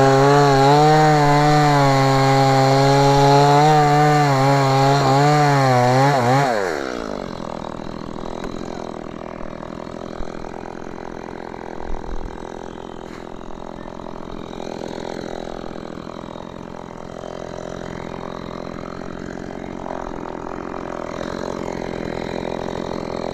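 STIHL MS 170 two-stroke chainsaw running at full throttle, its pitch wavering as it works through mango wood. About six and a half seconds in the throttle is released and the pitch drops away, leaving a much quieter steady sound with a few light knocks.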